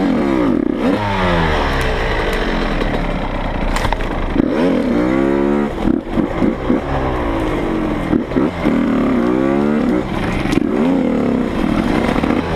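Dirt bike engine being ridden hard, its pitch rising and dropping again and again as it accelerates and shifts through the gears.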